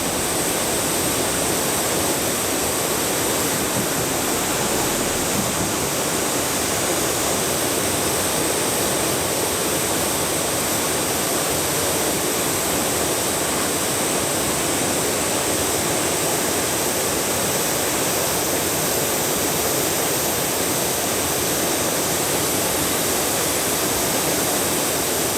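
Small river waterfall, water pouring and rushing in a steady, unbroken stream.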